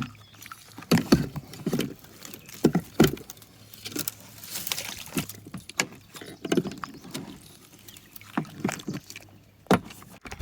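Kayak paddling: water splashing and trickling off the paddle, with irregular sharp knocks throughout.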